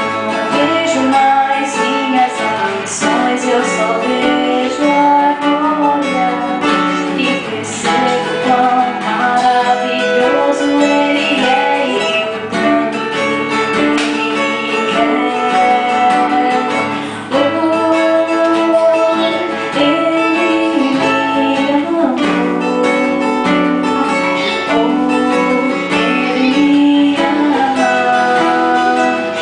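A woman singing a worship song over a strummed acoustic guitar.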